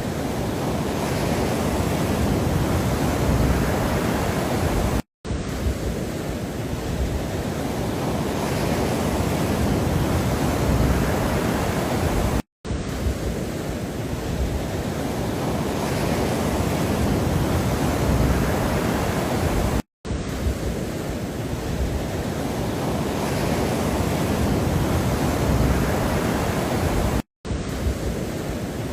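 Steady, deep rushing noise with slow swells in loudness, broken four times by a brief drop to silence about every seven seconds, where a short looped recording restarts.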